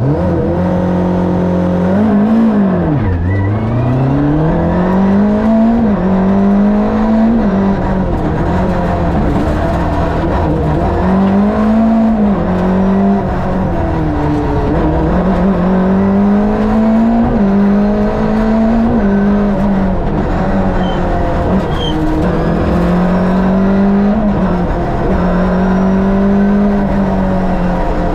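Lada VFTS rally car's Fiat two-litre twin-cam eight-valve four-cylinder engine, heard onboard at full stage pace. Its revs climb and drop back again and again as the car is driven through the gears and corners.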